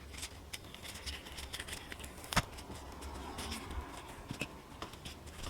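Cured resin pieces being flexed and pushed out of silicone molds: rustling and a run of small clicks, with one sharper click a little over two seconds in.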